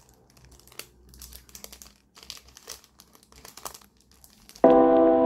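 Clear cellophane shrink wrap on a perfume gift box crinkling and crackling in irregular bursts as fingers pick and tear it open. About four and a half seconds in, music with steady ringing bell-like tones starts abruptly and covers it.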